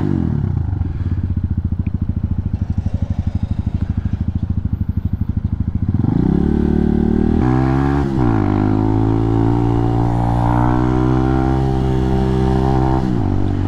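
Hawk 250 dual-sport motorcycle's single-cylinder engine, heard from the rider's helmet. It first runs at low revs with a slow, even putter. About halfway it accelerates, with a sharp dip in revs at a gear shift, then climbs to a steady higher note that drops off near the end.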